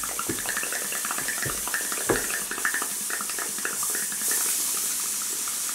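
Homemade single-cylinder model steam engine running on live steam: a steady hiss of escaping steam with fast, irregular chuffs and spits of condensed water from its leaking joints, and a light knock about two seconds in.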